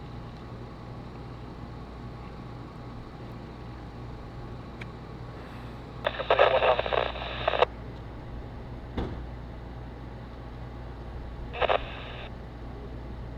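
Police scanner radio breaking squelch twice, a burst of about a second and a half a little past the middle and a shorter one near the end, with thin, narrow radio audio over a steady low hum. A single click comes between them.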